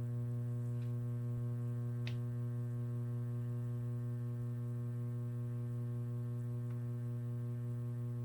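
Sunbuck tube amplifier putting out a steady, very loud mains hum through bookshelf speakers once its tubes have warmed up: a low hum with a buzzy stack of overtones, with one faint tick about two seconds in. The owner takes the amplifier for broken.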